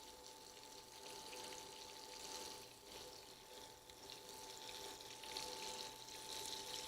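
Flour-dusted chicken pieces frying faintly in a pan, a soft, even crackle with a steady thin tone underneath.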